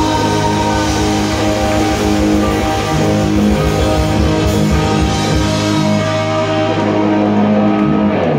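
Live rock band playing: electric guitars, bass and drum kit.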